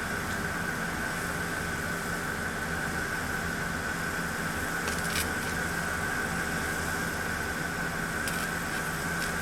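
A steady mechanical hum with a thin, constant high whine over it, and a couple of faint clicks about halfway through and near the end.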